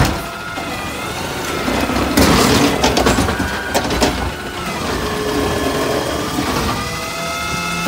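McNeilus ZR automated side-loader arm on a CNG Peterbilt 520 garbage truck lifting, dumping and lowering a wheeled cart. The engine and hydraulic whine rise and fall in pitch, with a burst of clattering and a few knocks in the middle as the trash drops into the hopper and the cart shakes.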